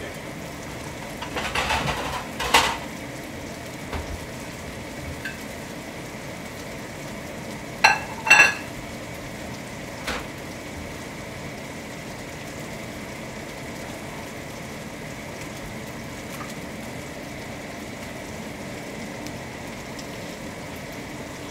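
Chicken thighs sizzling steadily skin-side down in a stainless steel frying pan. A ceramic plate clatters and clinks as it is handled and set down, around two seconds in and again, louder, about eight seconds in.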